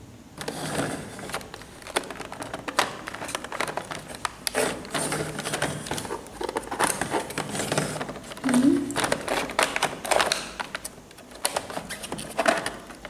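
Hard plastic toy kitchen pieces being handled: a dense, irregular run of small clicks, knocks and rustles as the toy stove unit is turned over and its pots and parts are moved.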